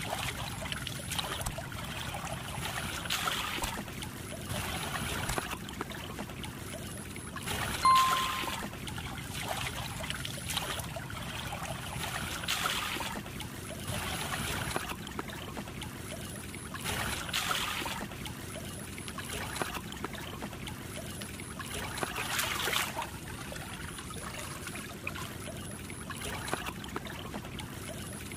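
Muddy ditch water running steadily, a trickling rush that swells every few seconds. A brief sharp sound, the loudest moment, cuts in about eight seconds in.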